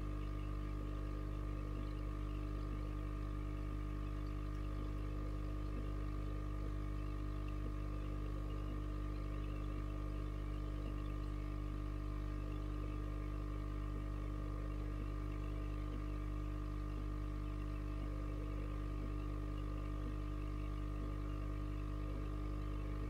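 Aquarium pump motor humming steadily: a low hum with a few fixed higher tones above it.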